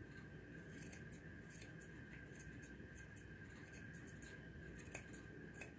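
Grooming scissors snipping through a standard poodle puppy's curly coat: faint, irregular snips, about three a second, starting about a second in.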